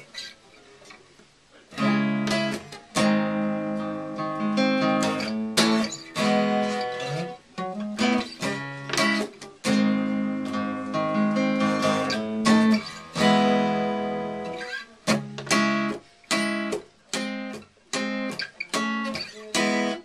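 Acoustic guitar strummed in chords, starting with a few soft notes and then loud ringing strums with brief pauses between phrases. Near the end the chords turn short and choppy, each one cut off after it is struck.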